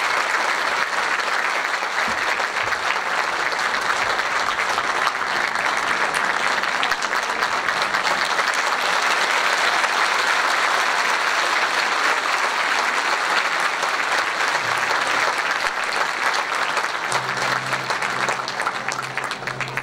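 Concert hall audience applauding: a dense, steady patter of many hands clapping, easing slightly near the end.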